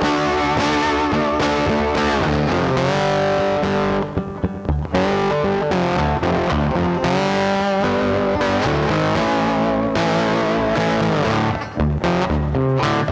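Background rock music led by a distorted electric guitar, with bent notes, over a bass line.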